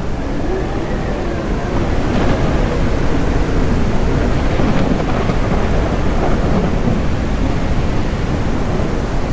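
Thunderstorm sound effect: steady rain with low, rolling thunder.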